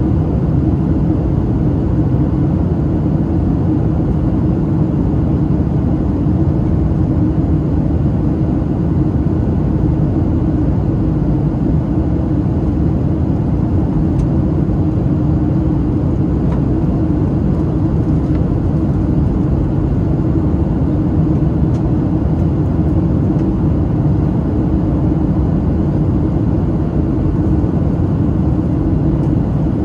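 Steady cabin noise inside a Boeing 737-700 on approach: the even rush of airflow and the hum of its CFM56-7B turbofan engines, with a low, unchanging drone.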